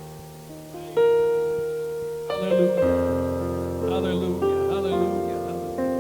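Keyboard playing slow held chords: a new chord is struck about a second in and another a little past two seconds, with a low bass note joining just before three seconds.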